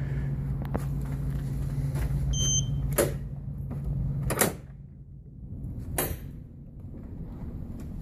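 A door's metal lever handle and latch clicking as the door is opened. There are three sharp clicks, about three, four and a half, and six seconds in, over a steady low hum that stops at the second click.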